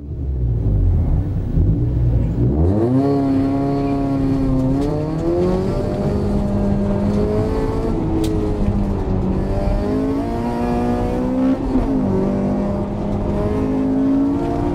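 Honda Civic's B18C 1.8-litre DOHC VTEC four-cylinder, heard from inside the cabin, revving hard as the car launches about two and a half seconds in, then rising and falling in pitch again and again as the throttle is pressed and lifted.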